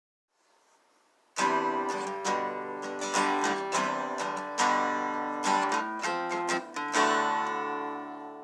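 Strummed guitar music: a run of chords begins about a second and a half in, and the last chord rings out and fades near the end.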